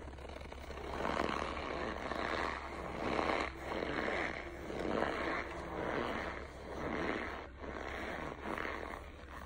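Compressed chunks of eating starch crunching as they are chewed and crushed, in rough bursts about once a second.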